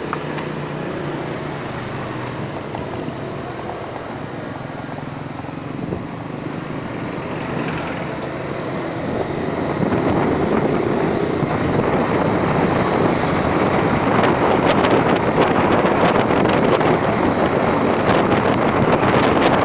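A motor vehicle's engine running steadily while riding, with wind buffeting the microphone. The wind grows louder about halfway through and covers the engine.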